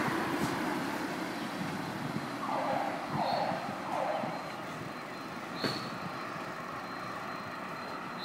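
Road traffic noise: a steady rush of passing cars and tyres on asphalt, with three short falling tones in quick succession a little over two seconds in.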